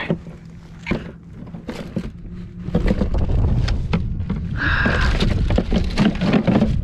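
Thuds, knocks and rustling as a redfish is shoved into a plastic cooler among frozen water bottles and a plastic bag. A few separate knocks at first, then the handling gets louder and busier about three seconds in.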